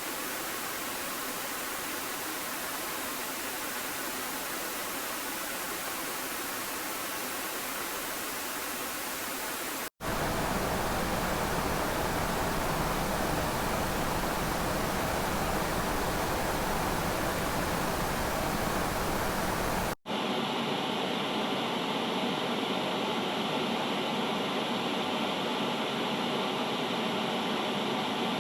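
Steady hissing noise in three back-to-back stretches of about ten seconds each, each with a slightly different tone, broken by short sudden dropouts between them.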